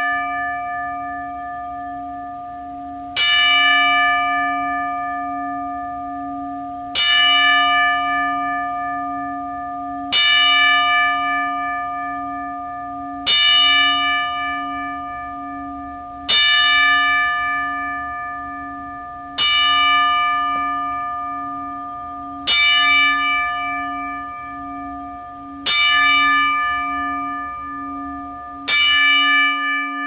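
A single bell tolled slowly, struck nine times about three seconds apart. Each stroke rings out and fades, its low tone carrying into the next stroke: a mourning toll for a death.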